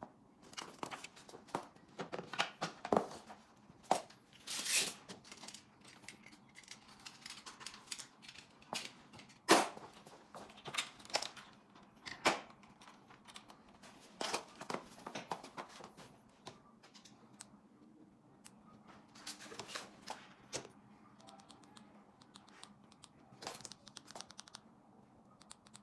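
Hands handling and fitting an e-bike's plastic battery pack into the frame: a string of irregular clicks, knocks and brief scrapes and rustles, the loudest knock about nine and a half seconds in.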